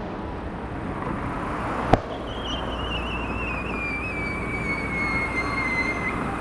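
A fireworks shell bursts with a single sharp bang about two seconds in, then a long whistle falls slowly in pitch for about four seconds, over steady background noise.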